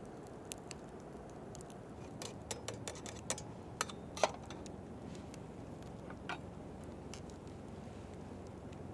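Scattered light clicks and taps of small hard objects, with one short ringing metallic clink about four seconds in, over a steady low hiss.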